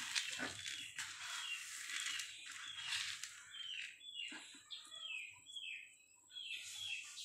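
Dry cracked corn and rice rustling as a hand stirs them in a plastic basin. After about three seconds, a string of short, falling chirps from small birds joins in.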